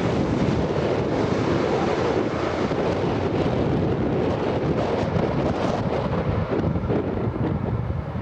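Jet noise from an Airbus A320neo's CFM LEAP-1A engines as the airliner rolls out on the runway after touchdown, a steady rumble that eases a little near the end. Wind buffets the microphone throughout.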